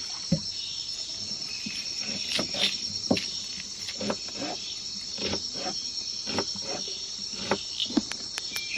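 A steady, high chorus of rainforest insects, crickets among them, with scattered short clicks and knocks over it.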